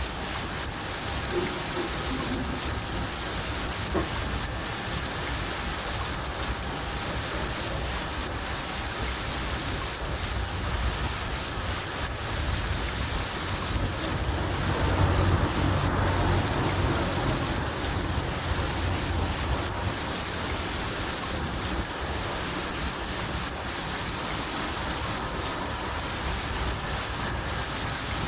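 A cricket chirping in a steady rhythm, about two to three high chirps a second, over steady rain. A low roll of thunder swells and fades about halfway through.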